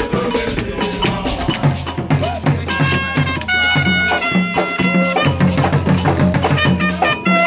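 Live Borborbor band music: hand drums and percussion beat a busy, steady rhythm, and from about three seconds in a brass horn plays held notes over a repeating low pattern.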